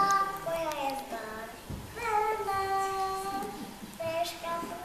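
Young children singing a slow song melody, with long held notes.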